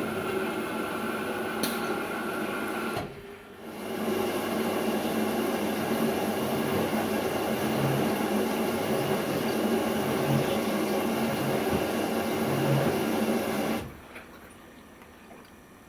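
Washing machine motor turning the drum with a steady mechanical hum. It stops briefly about three seconds in, starts again, runs for about ten seconds and stops near the end.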